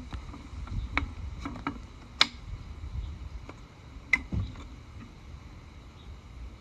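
Sharp clicks and knocks from brake parts and tools being handled during a disc brake job. Three stand out, the loudest about two seconds in, over a low steady rumble.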